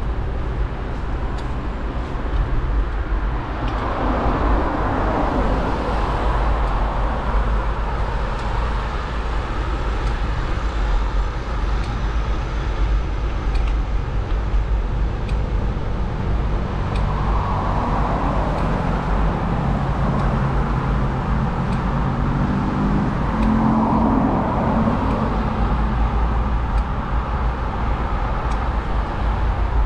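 Steady low rumble of wind and road noise on a GoPro mounted on a moving bicycle. A few motor vehicles pass, each swelling and fading, near the start, around the middle and again near the end.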